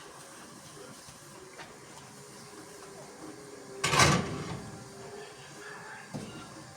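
A single short thud about four seconds in, over quiet room tone.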